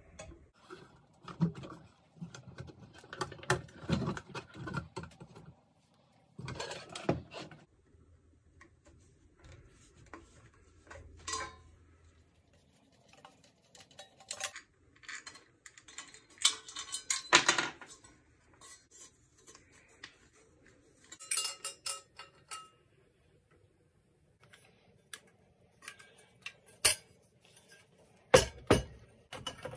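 Irregular metal clinks, knocks and scrapes of a screwdriver and hands working on an old GE electric desk fan's wire guard and blade hub as it is taken apart. The loudest knocks come about halfway through and near the end.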